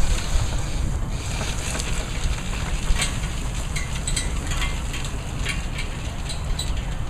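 Wind buffeting the microphone in a steady low rumble, with faint, irregular clicks and ticks scattered through it.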